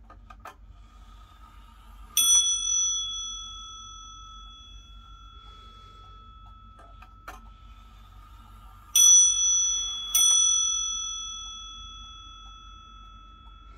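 Warmink Zaanse wall clock's bell struck by its striking train as the hands are turned by hand: one stroke, then two more about a second apart, each ringing on and slowly dying away. Faint clicks from the movement come before the first stroke.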